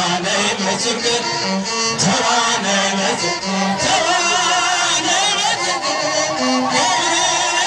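A man singing a church hymn into a microphone over amplified instrumental accompaniment, his held notes wavering with vibrato.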